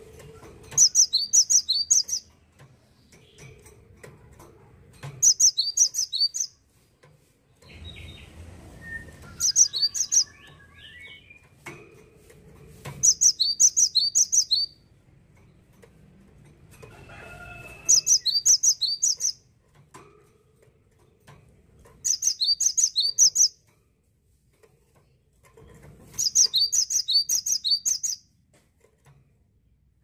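Cinereous tit singing: short phrases of a few rapid, high, repeated notes, given about every four seconds, seven times. Fainter, lower calls come in between.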